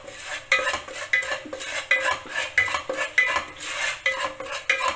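Wooden spatula scraping and stirring a spice paste in ghee around a nonstick pan, in repeated strokes about one and a half a second.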